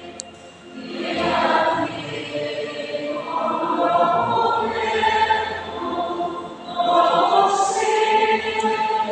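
Music with choral singing: several voices holding long sung phrases.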